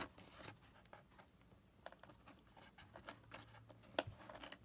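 Fingers picking and scratching at the cut flap of a cardboard box to pry it open: faint scratching and rubbing on the cardboard with a few sharp clicks, at the start, about two seconds in and near the end.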